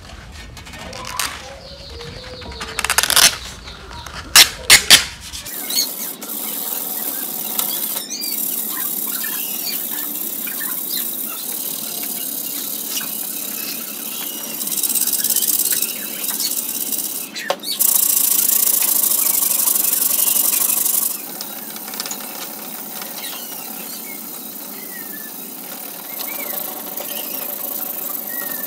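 400-grit aluminium oxide sandpaper rubbed by hand over a sheet-steel equipment panel, a continuous scratchy rasp that grows louder around a quarter of the way in and again for a few seconds past the middle. Before that, the sandpaper sheet crackles and gives a few sharp loud snaps as it is torn and folded.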